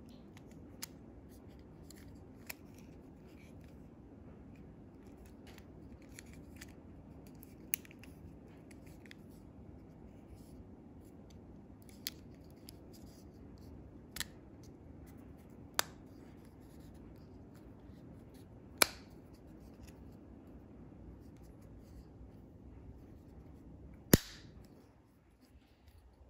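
Scattered sharp plastic clicks as the two halves of a Hyundai smart key fob's case are pressed back together, ending with a loud snap near the end as the case clicks shut.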